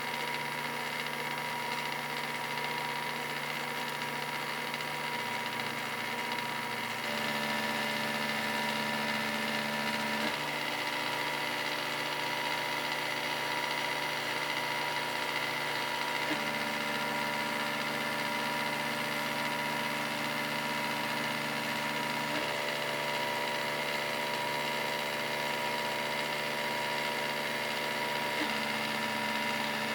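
CNC milling machine cutting with an end mill on a contour pass around a square pocket: a steady machining whine whose tone steps to a new pitch about every six seconds.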